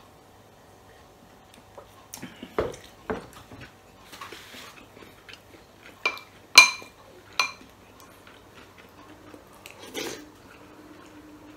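Metal spoon clinking against a glass bowl: three ringing clinks under a second apart, the middle one loudest, after a few duller knocks of tableware on the table.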